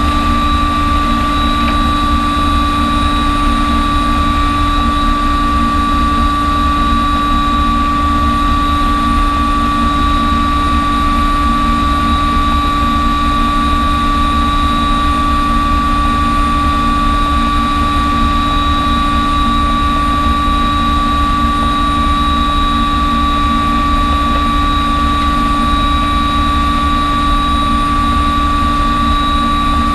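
Small helicopter running on a ship's helideck with its rotor turning, heard from inside the open cockpit: a steady high whine over a constant low noise, unchanging throughout.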